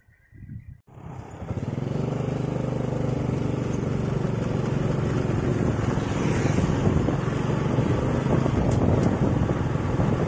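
Motorcycle engine and road noise, coming in abruptly about a second in and then running steadily while riding along a paved road.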